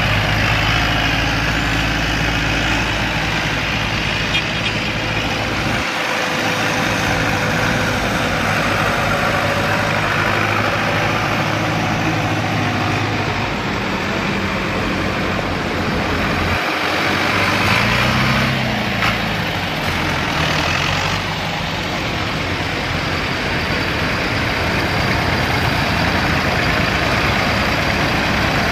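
Engines of a procession of old farm tractors running as they drive past one after another, the engine note changing as each one passes. The low hum drops out briefly twice, once about six seconds in and once a little past halfway.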